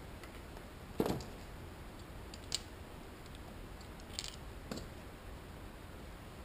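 A few scattered clicks and knocks of hand tools and small parts being handled and set down: a dull knock about a second in, then three lighter metallic clicks and clinks.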